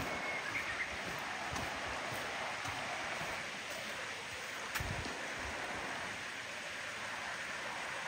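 Steady hiss of a shallow river's water flowing over rocks, with a single dull thump close by a little before five seconds in.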